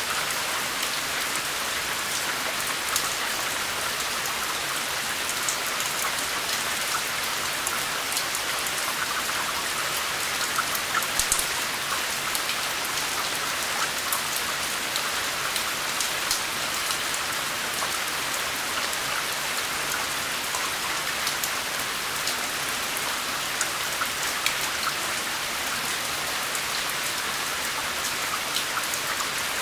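Steady rain, with many individual drops ticking sharply on a hard surface over the continuous hiss of the downpour.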